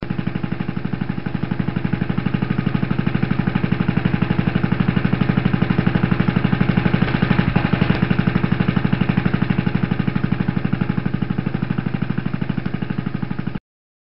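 Boat engine running steadily at a constant speed, with a rapid, even chugging pulse, cutting off suddenly near the end.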